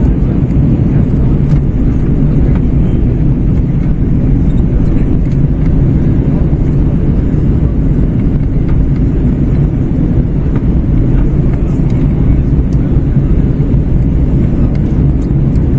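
Steady low rumble inside the cabin of an Airbus A321-111 in descent: rushing airflow over the fuselage and its CFM56 engines running, with no change through the stretch.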